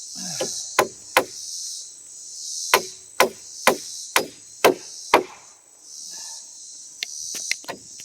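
A hammer driving nails into wooden floor boards: sharp strikes about two a second, a pause of over a second, then a quicker run of blows near the end. Insects trill steadily in the background.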